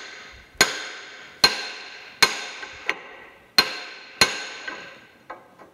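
Hammer blows on a brass drift rod driving a pressed-in bronze bushing out of its pivot bore: five sharp, ringing metallic strikes, each fading away, with a pause in the middle and a few lighter taps near the end. The bushing is moving under the blows.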